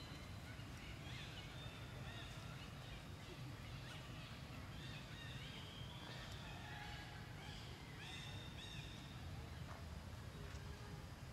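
Birds chirping and calling off and on, short whistled notes with a few longer held calls, over a steady low hum.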